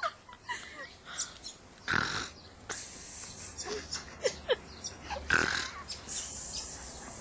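Snoring: two snores about three seconds apart, each a short rough sound followed by a longer breathy hiss.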